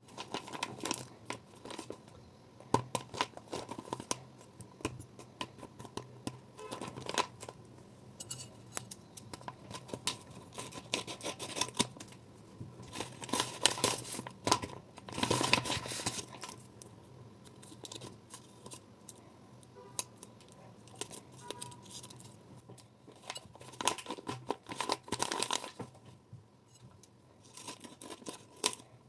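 Paper being handled while a paper blind bag is opened: irregular tearing, crinkling and rustling, with sharp snips and clicks. It comes in bursts, busiest around the middle and again near the end, over a faint steady hum.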